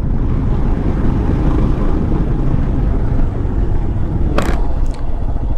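Motorcycle engine running on the move, mixed with heavy wind rumble on the microphone. There is one short sharp sound about four and a half seconds in.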